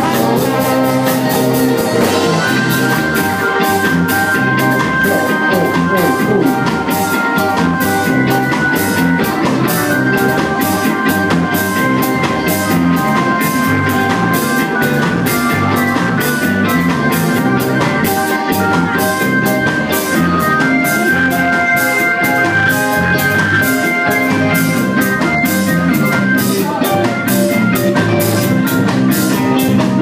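Live ska band playing, with a horn section of trumpet, trombone and tenor saxophone holding long notes over drums and guitar.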